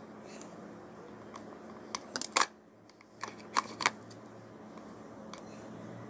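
Scissors snipping through the insulated wires of a power cord: a quick cluster of sharp snips about two seconds in, the last of them the loudest, then a few lighter clicks a second later.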